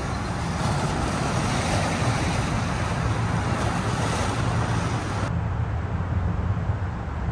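Steady rumble of road traffic crossing the Verrazano-Narrows Bridge overhead, with no distinct events. About five seconds in, the hiss in the upper range drops away suddenly while the rumble carries on.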